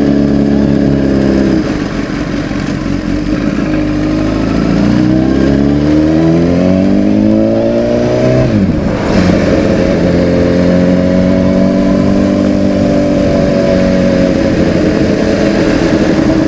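Motorcycle engine heard from on board. It runs steadily, eases off about a second and a half in, then accelerates with a rising pitch for about four seconds. The pitch drops sharply at a gear change and the engine settles into steady cruising.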